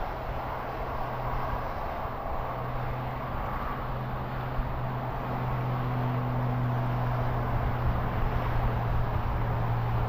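Steady drone of a distant engine, with a low hum that grows louder over the second half.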